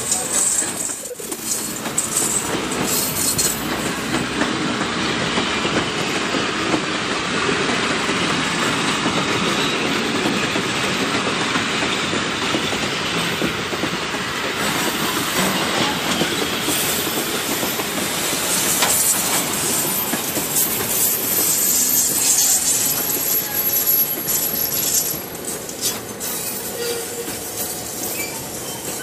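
Heritage passenger coaches rolling past close by on curved track, steel wheels rumbling and clacking on the rails. A thin, high wheel squeal comes in about three-quarters of the way through.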